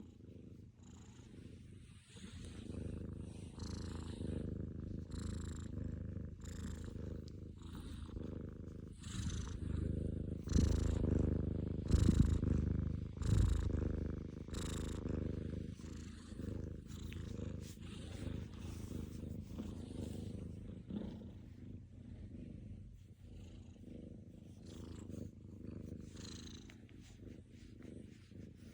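A cat's continuous low rumble, taken for snoring, with a soft breathy hiss at each breath. It swells loudest about ten to fourteen seconds in.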